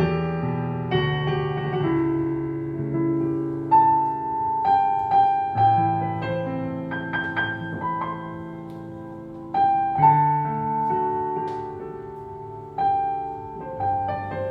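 Roland LX17 digital piano playing a slow melody over sustained low chords. Single melody notes are struck about every half second to a second, with a few louder accents near the middle and toward the end.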